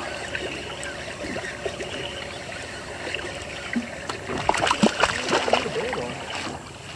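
Water lapping against a fishing boat's hull, a steady washing sound, with a few sharper irregular sounds between about four and a half and six seconds in.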